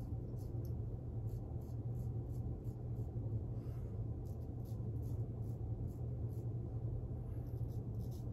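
Short repeated scrapes, about three a second, of a Feather SS kamisori-style razor with a replaceable blade cutting stubble on a lathered face. A steady low hum runs underneath.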